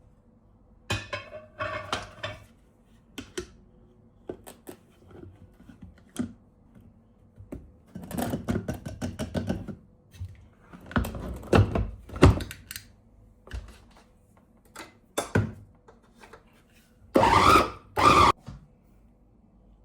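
Kitchen work sounds: irregular knocks and clatters of utensils and dishes being handled, with two loud, short noisy bursts near the end.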